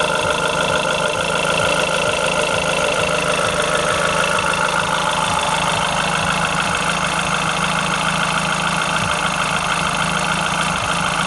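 Renault Clio RS engine idling steadily at an even speed, with no revving.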